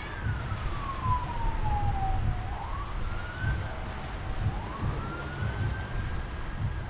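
A distant siren wailing, its pitch sliding slowly down and back up over a couple of seconds each way, over a low gusty rumble of wind.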